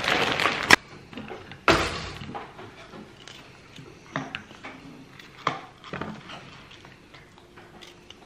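Plastic bag of frozen waffles rustling, then a sharp click and a louder knock. After that, scattered soft clicks of a table knife halving grapes over a plastic plate and tub.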